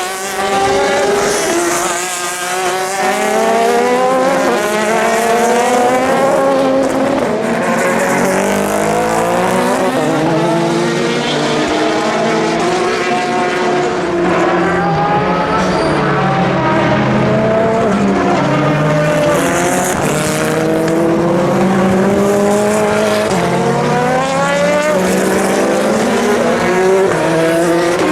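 Several endurance race cars at full racing speed, their engines overlapping as they pass: pitches climb through the gears and drop back, with no gap in the engine noise.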